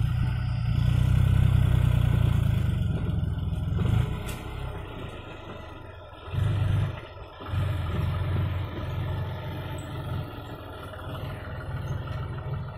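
Diesel tractor engine pulling a trailer loaded with earth, running loud and low. It eases off about four seconds in, surges briefly in the middle, then runs on steadily.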